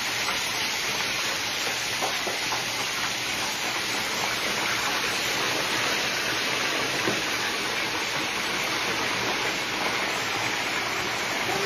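Chicken pieces deep-frying in a large aluminium pan of hot oil: a steady, even sizzle.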